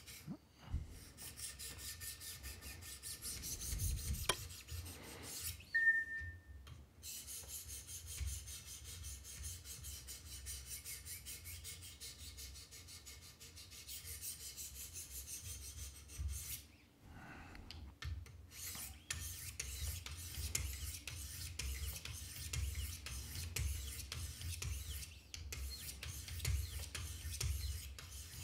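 400-grit diamond stones of a Wicked Edge guided sharpener rasping along the edge of a Benchmade Mini Reflex II blade in repeated sharpening strokes, with a few short pauses.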